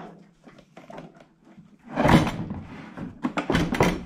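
Knocks and clunks of a portable band saw being handled as its blade-tension lever and safety cover are set back in place: faint clicks, a heavier thunk about two seconds in, then a quick run of sharp clicks near the end.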